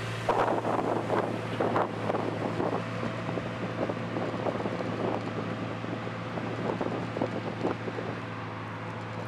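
Bugatti test car's W16 engine idling with a steady low hum, with wind buffeting the microphone.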